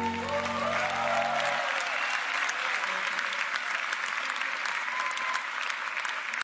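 Large audience applauding, with a few shouts over the clapping, as the band's last held chord fades out about a second and a half in.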